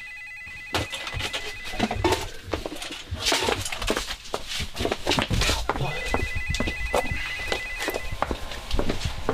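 Telephone ringing with a trilling electronic ring: a short burst at the start and a longer ring about six seconds in. In between come loud thumping footsteps of someone hurrying up stairs.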